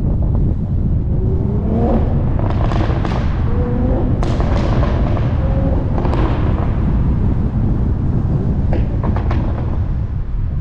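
Toyota A90 Supra's turbocharged B58 straight-six running hard with a heavy rumble, its exhaust popping and crackling in a cluster of sharp cracks from about two to seven seconds in and again around nine seconds.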